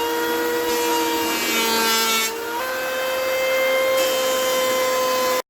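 Harbor Freight handheld electric planer running with a steady whine as it shaves the edge of a yellow pine slab. The cutting noise thickens about a second in, eases after two seconds as the motor's pitch lifts slightly off the load, builds again, and the sound stops abruptly near the end.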